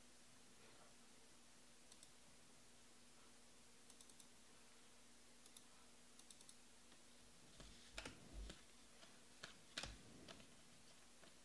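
Mostly near silence, then, from about two-thirds of the way in, a handful of sharp clicks and rustles as glossy baseball trading cards are flicked and slid against each other in the hand.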